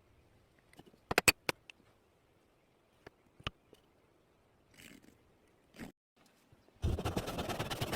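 Hand woodworking tools working wood: sharp knocks and taps, three in quick succession about a second in and a few single ones later, with short scrapes. Near the end a loud, dense rattle of rapid strokes begins.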